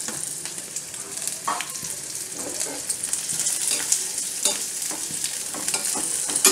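Chopped onion sizzling in hot oil in a small kadai, stirred with a steel spoon that scrapes and clinks against the pan a few times.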